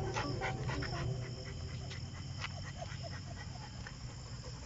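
Rottweiler panting, quick breaths about four or five a second that fade after the first second or two, over a low steady hum.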